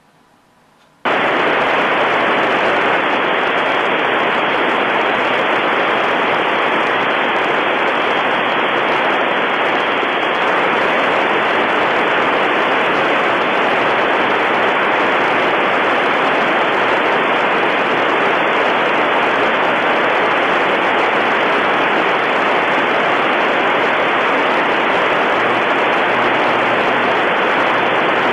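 Icom IC-746PRO transceiver on the 145.80 MHz FM space station downlink giving out steady, loud receiver static with no voice in it. It starts suddenly about a second in, typical of the squelch opening on a weak or absent signal.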